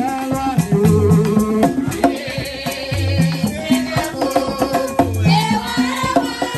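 Haitian Vodou ceremonial music: hand drums and rattles keep a steady beat under a low repeating note figure, with singing into a microphone.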